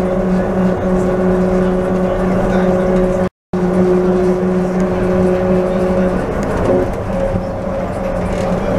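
Driverless airport people mover running at speed: a steady electric motor whine made of several held tones over rolling noise. The sound cuts out completely for a moment about three seconds in.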